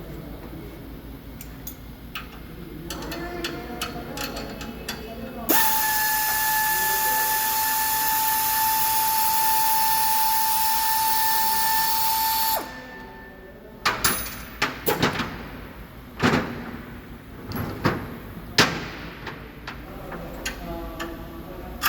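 A power tool runs at a steady speed for about seven seconds, a constant whine over hiss, starting and stopping abruptly. Afterwards come several sharp metallic knocks and clanks of hand tools and parts.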